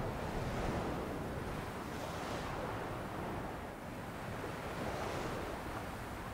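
Ocean surf breaking and washing steadily, with a brighter hiss of white water swelling up about two seconds in and again about five seconds in.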